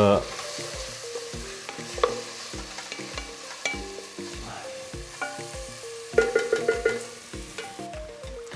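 Chopped vegetables sizzling in oil in an enamel pot while being stirred with a wooden spoon, under background music with a steady beat and a melody.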